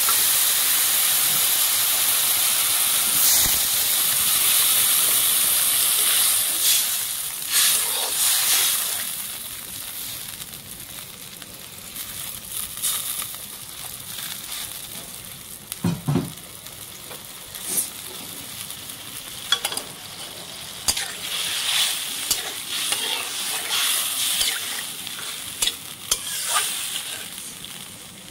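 Water poured onto hot fried masala, ridge gourd and potato in a metal karahi: a loud sizzling hiss for about the first nine seconds that then dies down. Through the rest, a metal spatula scrapes and knocks against the pan as the thin curry is stirred, over a quieter simmering hiss.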